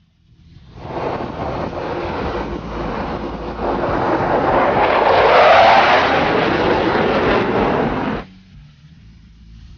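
F-18 jet flying past: a loud jet engine rush that swells in the middle, with its pitch sweeping as it passes, then cuts off abruptly near the end.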